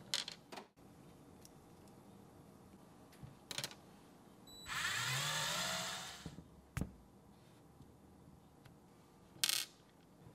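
Small RC axle parts clicking as they are handled and set down on a rubber work mat, a few separate taps. Around the middle, a louder whir of under two seconds rises in pitch and fades; near the end a short, sharper clatter sounds as a small pin is dropped onto the mat.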